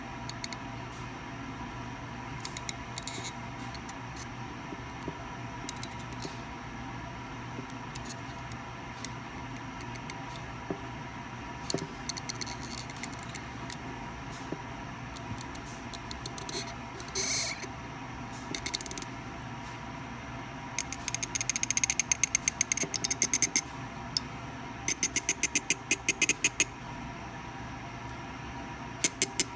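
Light metal clicks and ticks from a hand HeliCoil installation tool winding a 1/4"-20 steel thread insert into the stripped threaded hole of a snare stand. Past the middle come two quick runs of rapid clicking, over a steady electrical hum.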